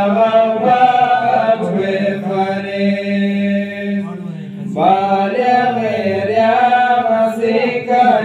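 A man's voice chanting a Balti devotional qasida in long, wavering held notes, pausing briefly about four seconds in before going on.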